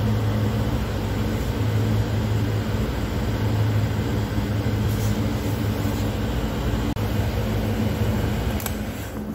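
Honda Vario 150 scooter's engine idling with a steady drone, with a few light clicks from its meter and switch buttons being pressed.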